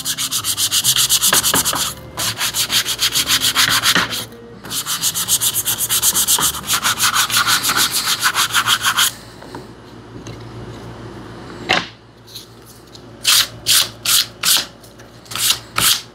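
Hand sanding with a sanding sponge along the edges of white-painted MDF tree cutouts, rubbing through the paint to distress them. Quick back-and-forth scrubbing strokes in runs, with short breaks about two and four seconds in, a quieter stretch in the middle, and a few slower separate strokes near the end.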